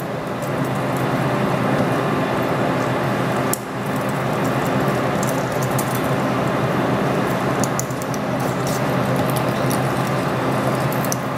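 Metal lathe running, with a counterbore fed from the tailstock cutting into a soft-jaw blank lubricated with WD-40: a steady cutting noise over the machine's hum. It eases off briefly about three and a half seconds in and again near eight seconds.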